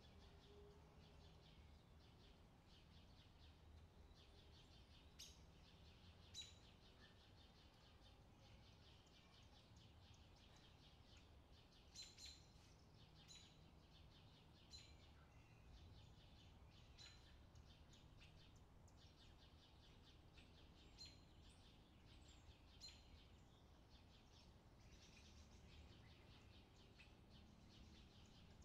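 Faint beach ambience: small birds give short, thin, high chirps every second or two over a low, steady background hush.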